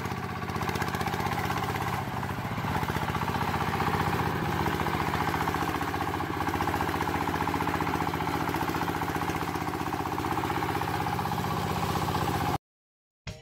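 A small engine running steadily at idle with a rapid, even chugging, cutting off suddenly near the end.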